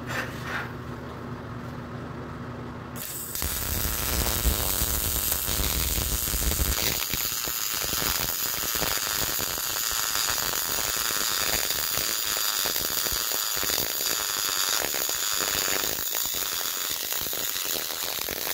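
MIG welding arc on 1/4-inch steel, struck about three seconds in and then running as a steady, dense crackling sizzle. The settings are right: a normal MIG weld.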